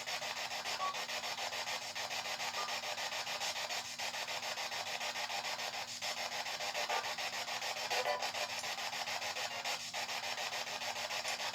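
Spirit box sweeping through radio frequencies: a steady static hiss, chopped rapidly and evenly as it jumps from station to station, over a faint steady low hum.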